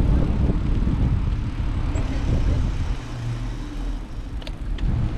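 Wind buffeting the microphone of a camera riding on a moving bicycle, giving an uneven low rumble, with two short clicks near the end.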